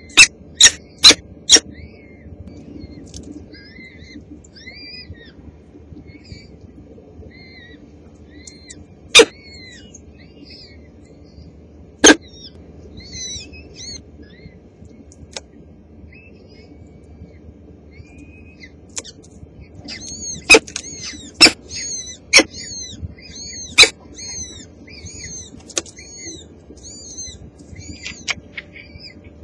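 Newly hatched peregrine falcon chicks cheeping with thin, high, arching peeps that come and go and are busiest about two-thirds of the way through: begging while the adult feeds them. Loud sharp knocks stand out above the peeps: four in quick succession at the start, and a handful more later.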